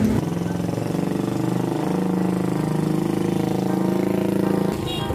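Motorcycle engine running close by: a steady low hum with a fast, even pulse that breaks off abruptly near the end.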